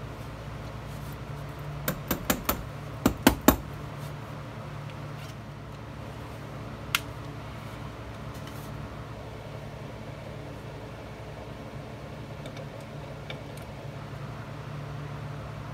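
A quick run of about seven sharp knocks over a second and a half, then a single knock a few seconds later: tools and hands knocking on the wooden shelf and lattice frame as it is fitted. A steady low hum runs underneath.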